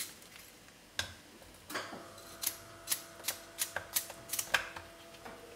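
A small kitchen knife cuts through a shallot held in the hand, giving a run of crisp clicks, roughly three a second, from about two seconds in. A single sharp click comes about a second in.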